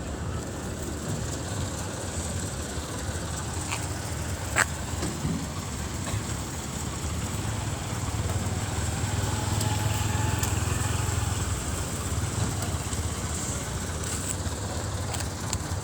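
A steady low engine rumble that swells for a few seconds past the middle, with one sharp click a little under five seconds in.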